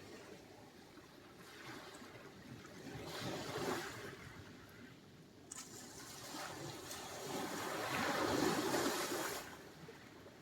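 Small sea waves washing onto the shore: two swells of hissing surf, the second, near the end, louder and longer.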